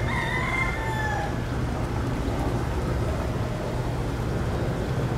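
A rooster crows once, about a second long, over a steady low rumble.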